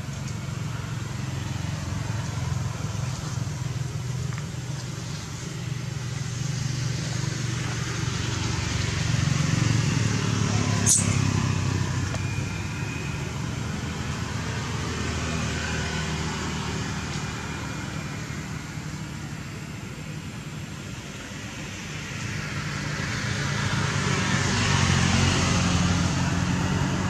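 Road vehicle engines running steadily, swelling twice as traffic passes. A single short, sharp high click comes about eleven seconds in.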